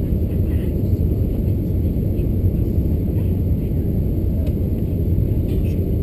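Steady low rumble of engine and airflow noise inside the cabin of an Airbus A380-861 climbing out just after takeoff, its Engine Alliance GP7270 turbofans at climb power.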